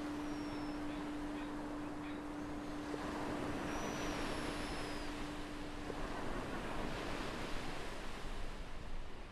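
Ocean surf washing steadily, with a few faint, high seagull calls in the first half. A low steady tone fades out about six seconds in.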